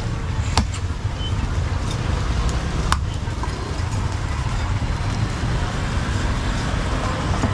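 Busy street-market background: a steady low rumble of passing traffic mixed with faint background voices, broken by a few sharp clicks.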